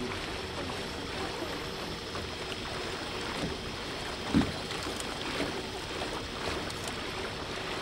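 Small river tour boat under way: a steady rush of water along the hull with a faint steady hum. A single low thump comes about halfway through.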